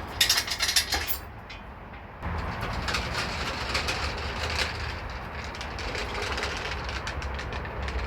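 Metal clatter and rattling from garage work on a pulled engine on its jack and dolly: a burst of sharp clicks and knocks, a short lull, then about two seconds in a steady rattling rumble with scattered clicks.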